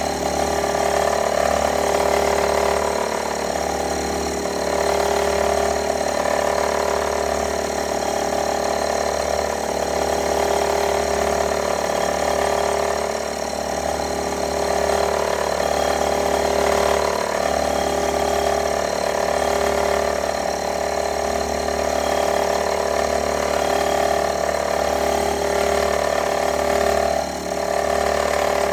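Metalworking machine tool running steadily, a gear-driven mill or lathe machining a part, with a whine of several steady tones.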